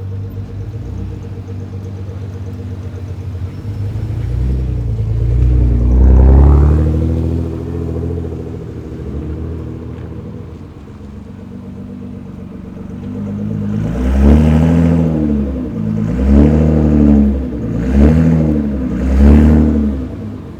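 Nissan GT-R engine idling, then revved once about a quarter of the way in. Near the end it is blipped four times in quick succession, with popping and crackling from the exhaust on the revs.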